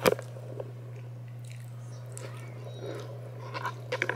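Handling noise from the camera and a spiral notebook being moved on a blanket: a sharp knock right at the start, then soft rustles and clicks, most of them near the end, over a steady low hum.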